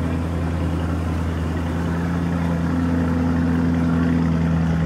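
Vehicle engine running steadily: a low, even hum that swells slightly about three to four seconds in.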